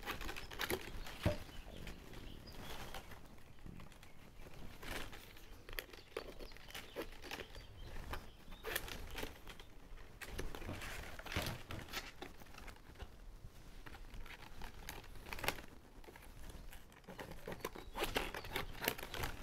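Plastic baling straps rustling, crinkling and scraping against each other as they are bent, folded and tucked under the weave of a strap basket, in irregular short strokes.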